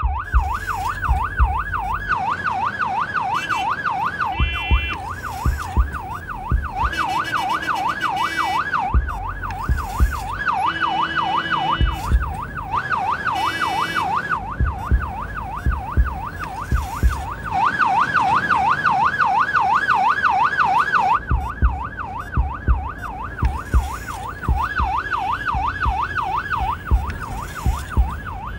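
Ambulance siren wailing continuously in a fast up-and-down yelp, several sweeps a second. Short steady-pitched honks like vehicle horns cut in a few times, and deep thumps come and go underneath.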